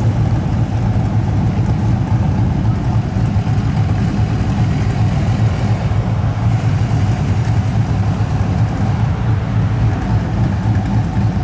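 A Pontiac GTO's V8 idling in traffic with a steady, low exhaust rumble.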